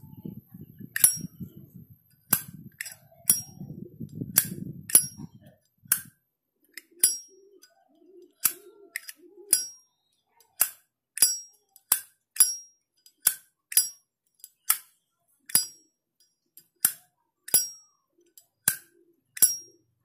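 Brass Zippo-style windproof lighter, a high-grade replica, flicked open and snapped shut over and over: a string of about thirty sharp metallic clicks, many with a bright ringing clink. Rustling handling noise under the clicks in the first few seconds.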